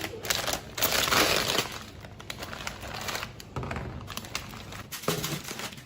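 Packaging crinkling and rustling as it is handled, loudest in the first second and a half, then quieter scattered crackles.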